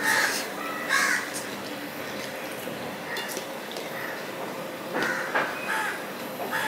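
Crows cawing: two short calls about a second apart at the start, then a few more around five seconds in.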